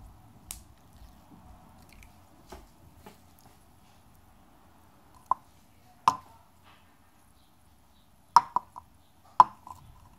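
Red slime being stretched and squeezed by hand, with several sharp wet pops in the second half as air pockets burst.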